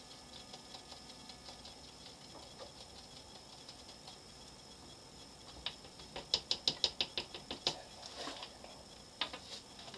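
A small container of glitter powder is shaken and tapped over a plastic mixing cup. It makes faint quick ticking, then a short burst of louder rapid clicks, about eight a second, a little past the middle.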